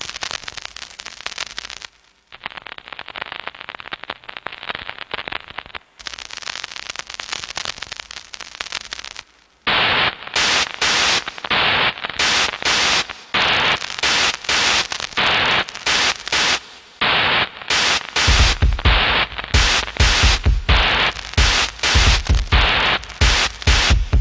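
Crackling static noise, switching about ten seconds in to loud stuttering bursts of noise that cut on and off, with deep bass thuds joining in near the end.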